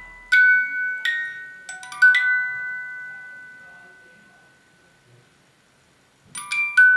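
Wind-up music box playing its tune on a plucked metal comb. After a few bright notes, one long note is left ringing and dies away almost to silence, then a quick run of notes starts again near the end.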